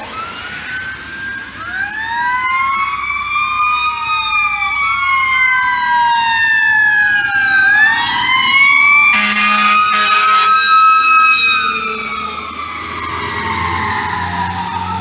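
Fire engine sirens: a mechanical Q siren winding up and coasting down in slow rising and falling sweeps, overlapping a wailing electronic siren. Two air horn blasts come about nine to eleven seconds in.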